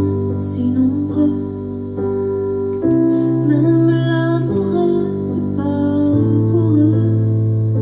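Piano chords played on a Yamaha MOX8 keyboard, each held for a second or two, with a woman singing a slow ballad melody over them.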